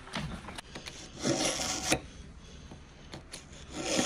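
A kitchen knife drawn through a handheld pull-through knife sharpener: two long rasping strokes of steel on the sharpening slot, about two and a half seconds apart.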